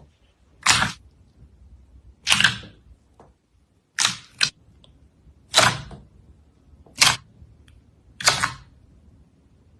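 Slime being squeezed and pressed, giving short sharp pops about every one and a half seconds, six in all, one of them doubled.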